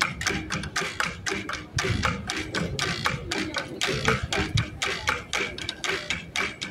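Hand percussion in a fast, even rhythm of short, dry, sharp strikes, about six a second, with a few heavier low thuds mixed in.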